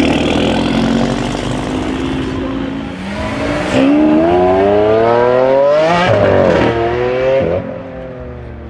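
Audi RS3's straight-piped five-cylinder turbo engine accelerating hard: a steady note for a few seconds, then the revs climb for about three seconds. A sharp crack comes around six seconds in and another about a second and a half later, then the sound fades.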